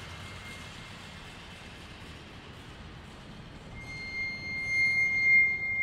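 Improvised sound-art performance in a geodesic radar dome: a low, even hiss and rumble, then a single high, sustained tone that fades in about four seconds in and swells loudest near the end.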